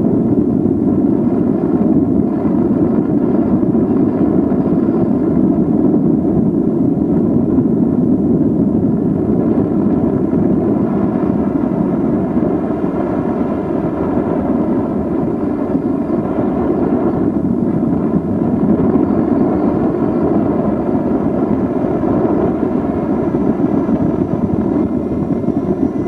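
The YS .45 model glow engine of a radio-control F-16 scale jet, driving a pusher propeller, running at high throttle in flight with a steady buzzing drone.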